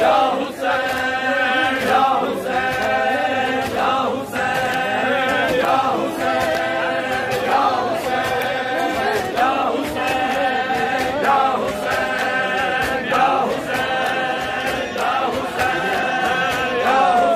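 A group of men chanting a noha together in short repeated phrases, about one a second, with hands slapping on bare chests in matam.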